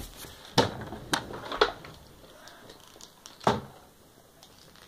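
About four short, sharp knocks and taps, a second or so apart with a longer gap before the last, from plastic toy pieces and their box being handled.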